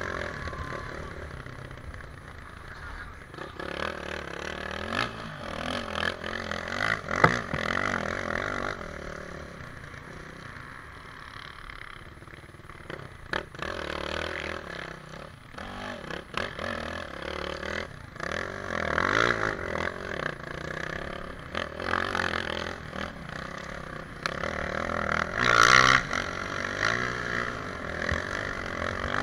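Racing motorcycle engine revving hard and backing off again and again, heard from a camera mounted on the bike, with clicks and clatter of snow and dirt spray hitting the camera. The loudest rev comes near the end.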